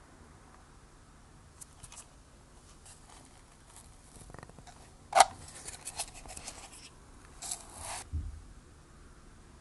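Plastic McFlurry spoon and cup being handled, with light plastic clicks. About five seconds in there is one sharp loud click, followed by a second or so of crackling scrapes as the spoon digs through soft-serve with crunchy chocolate pieces. A short rustle and a low thump come near the end.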